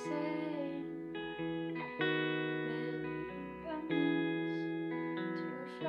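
Electric guitar played through a small amp, strummed chords left to ring, with a new chord struck about every second.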